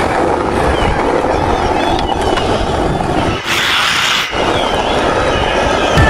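Skateboard wheels rolling over rough asphalt: a steady, loud rolling rumble that thins into a higher hiss for about a second a little past three seconds in, then returns.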